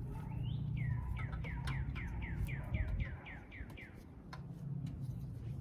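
A bird singing a run of about a dozen quick falling notes, roughly four a second, over a low steady rumble. A single sharp click comes just after the song stops.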